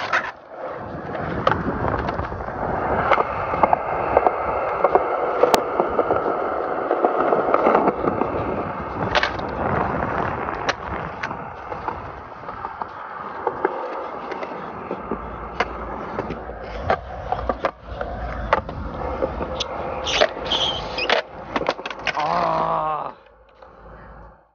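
Skateboard wheels rolling steadily on a concrete skatepark surface, with sharp board clacks from pops and landings throughout. Near the end a short yell is heard and the rolling stops.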